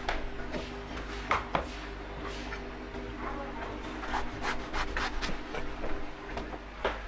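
A cleaver shaving and slicing through the soft husk of a young coconut: a string of short scraping cuts, a pair about a second and a half in, a cluster a little past the middle and one more near the end.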